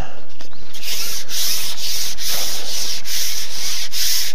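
Fishing pole being fed out hand over hand, rubbing in an even rhythm of about three strokes a second that starts under a second in.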